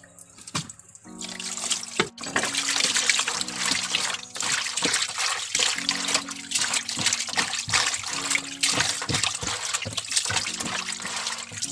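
Horn snails being washed by hand in a basin of water: water sloshing and splashing, with many small clicks of shells knocking together, starting about a second in. Background music plays underneath.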